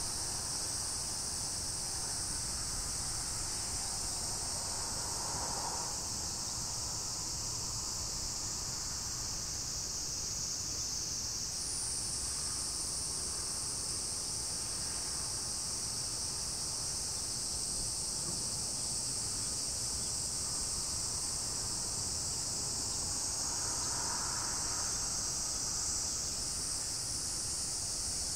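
A continuous high-pitched insect chorus buzzing steadily, its pitch and texture shifting slightly about eleven seconds in and again near the end.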